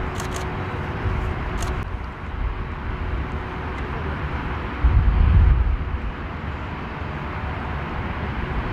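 Outdoor background noise: a steady rumble, heaviest in the low end, with a louder low surge about five seconds in and a few short sharp clicks in the first two seconds.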